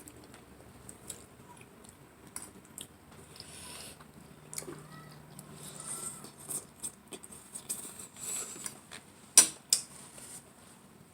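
Close-up eating sounds: mouth noises of chewing spaghetti, with scattered sharp clicks and two louder clicks near the end.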